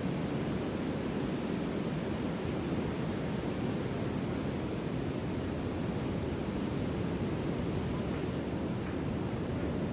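Sea surf: a steady, even wash of waves with no single wave breaking out above the rest.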